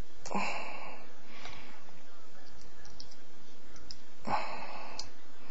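Small plastic clicks and handling noise as a USB wireless receiver is fitted into its extension cable, with two short rustling bursts, one just after the start and one about four seconds in.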